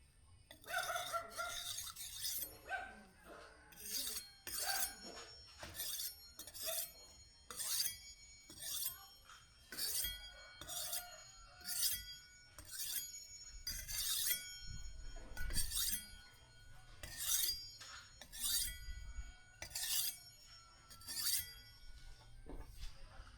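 Steel being worked by hand in a long run of sharp metallic strokes, a little more than one a second, each leaving a high ringing.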